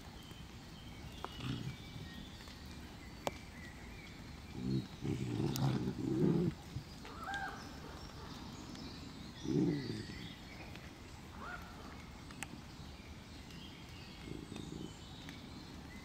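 Arctic wolf pups growling as they play-fight, in short rough bouts: the loudest run of growls comes about four to six seconds in, another about ten seconds in. Birds chirp faintly in the background.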